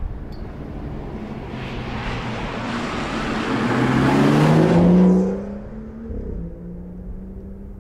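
BMW 435i Gran Coupé accelerating past, its engine note rising in pitch as it approaches and loudest about five seconds in, then dropping to a lower pitch and fading as it drives away.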